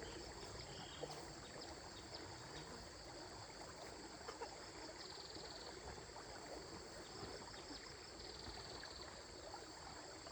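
Stream water flowing and trickling, with scattered small clicks, under a steady high-pitched ringing, with short stretches of fast pulsing about halfway and about eight seconds in.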